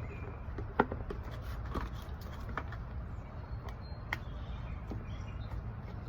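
Scattered small knocks and clicks of things being handled and set down, the sharpest about a second in, over a steady low rumble.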